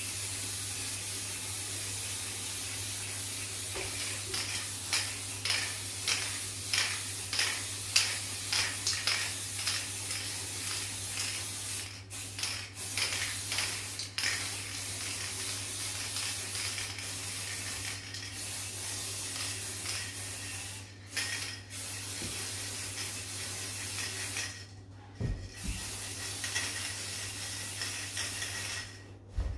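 Aerosol spray-paint can hissing as silver paint is sprayed onto wooden table legs, in many short repeated bursts through the first half, then longer sprays with a few brief stops.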